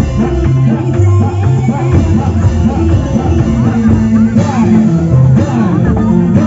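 Loud live Indramayu street-arts music: drums over a stepping bass line, with a wavering melody above.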